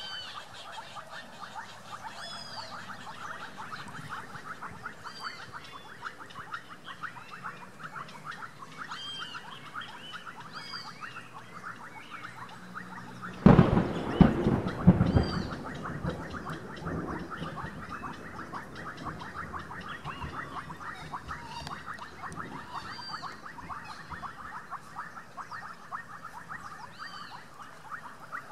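Outdoor animal chorus: a steady, dense chatter of rapid calls, with short high arching chirps from birds every second or two. About halfway through, a loud low rumble breaks in for a couple of seconds and then dies away.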